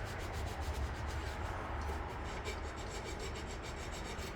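Sandpaper rubbed by hand in quick back-and-forth strokes over the painted hood of a 1958 Johnson outboard motor, smoothing the finish, over a steady low hum.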